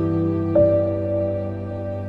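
Slow instrumental background music: held chords, with a new note struck about half a second in.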